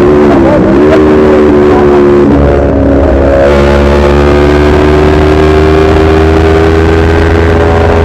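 Sport motorcycle engine under way at speed, heard from the bike itself: the engine note dips and recovers about half a second in, drops to a new pitch a little after two seconds, then holds steady and slowly climbs as it pulls.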